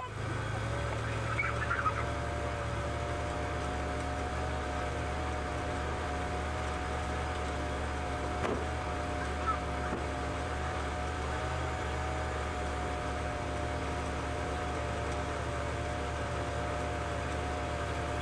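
Wood-Mizer portable sawmill running steadily, a low hum with a steady higher whine over it, and a few light knocks as slabs are handled.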